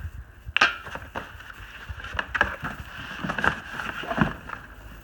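Unpacking handling noise: irregular knocks, clicks and rustles as the power cord and cardboard packing are handled around a stainless-steel wet/dry vacuum drum, with one sharp knock that rings briefly about half a second in.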